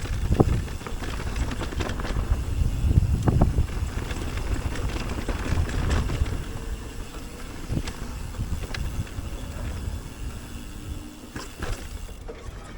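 Electric mountain bike rattling and knocking over rough ground, with a steady low rumble from the tyres and wind on the helmet or bike camera's microphone. The knocks come irregularly, thickest in the first few seconds.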